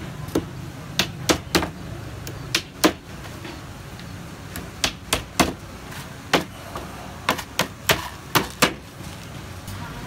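Hammer nailing a thin wooden board onto a wooden frame: sharp blows in quick groups of two or three, about fourteen in all, over a steady low hum.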